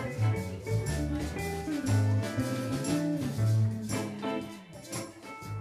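Live band playing a reggae song: electric guitars, drum kit and fiddle over a prominent, rhythmic bass line.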